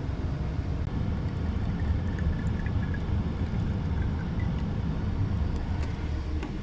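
Steady low rumble of an air-conditioning unit running in an attic, with no clear changes in level.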